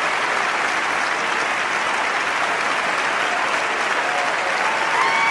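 Audience applauding steadily, with a single held pitched cheer starting near the end.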